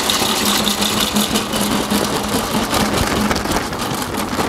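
Hickory wood pellets pouring from a bag into the metal hopper of a Traeger pellet grill, a dense rattling rush, over a steady motor hum from the switched-on grill that fades out about three seconds in.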